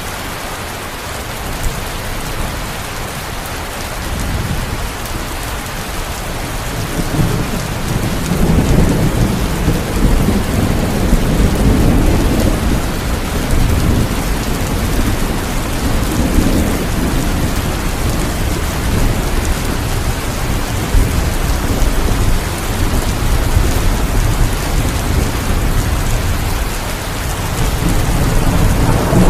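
Steady heavy rain hissing, with rolling thunder rumbling in from about four seconds in and swelling in waves.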